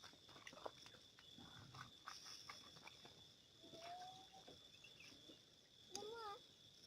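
Faint outdoor ambience: a steady high insect drone with scattered small clicks, a short gliding whistle-like tone about four seconds in, and a brief wavering animal call near the end.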